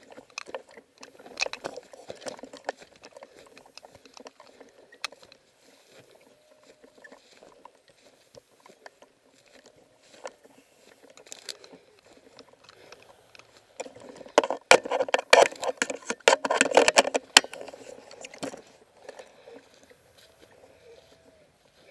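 Close rustling and crackling handling noise from the moving camera, with scattered clicks throughout and a loud, dense spell of crackling about two-thirds of the way through.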